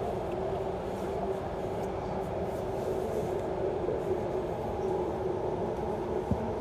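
Electric suburban train running between stations, heard from inside the carriage: a steady rumble of wheels and running gear with a steady hum, and a single brief click near the end.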